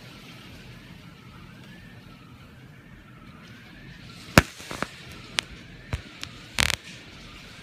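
Heavy cloudburst rain keeps up a steady hiss, under a faint alarm tone that rises and falls about once a second. From about four seconds in come a handful of sharp taps and cracks; the loudest is the first, and a quick cluster follows near the end.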